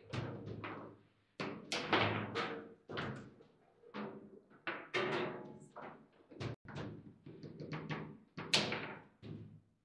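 Table football in play: sharp, irregular knocks and clacks of the ball against the plastic player figures, rods and table walls, a few every second, the loudest hits about two seconds in and near the end.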